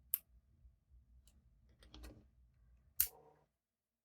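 Small sharp clicks and light ticks from an opened iPod Mini's parts being handled: a sharp click just after the start and a louder one near the end, with fainter ticks between.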